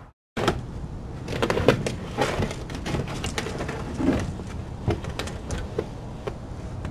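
Outdoor night-camera audio: a steady low rumble with scattered clicks, knocks and rustles as an opossum noses around and climbs into a plastic storage-tub cat shelter.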